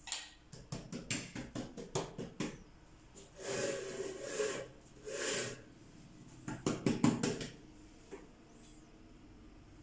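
Kitchen handling sounds: a run of light clicks and knocks from a spoon in a metal bowl of melted butter, then two rubbing rustles as hands slide the thin feteer dough over a wooden board, then another quick cluster of clicks.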